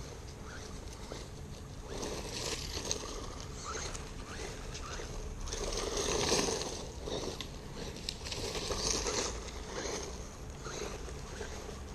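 Exceed RC Magnet 1/16-scale electric truck's RC380 brushed motor whining in short rising bursts as the throttle is blipped, over the noise of its tyres running on dry dirt. It is loudest about six seconds in, and again around nine seconds.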